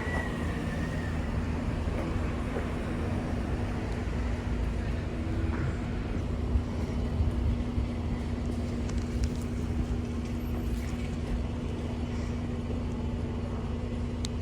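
Diesel bus engine running steadily nearby, a low rumble with a constant drone.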